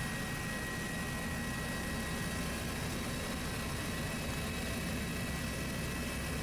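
Helicopter in flight heard from on board: a steady low rumble with a few thin, steady high tones over it.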